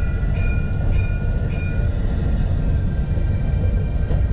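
Alstom Citadis low-floor tram running between stops, a steady low rumble. A few short high beeps come about every half second and end about two seconds in.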